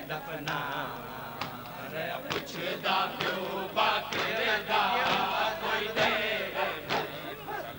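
Group of men chanting a noha, a Shia lament, in unison, with sharp chest-beating (matam) slaps about once a second keeping the beat.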